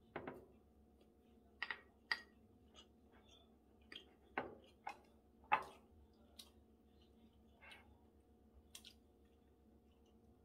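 Eating sounds: wooden chopsticks and a wooden spoon clicking and tapping against ceramic bowls and plates at an uneven pace, with chewing in between.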